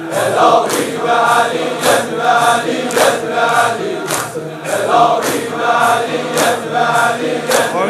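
Crowd of male mourners chanting a shur refrain in unison over a steady beat of chest-beating strokes, about two a second.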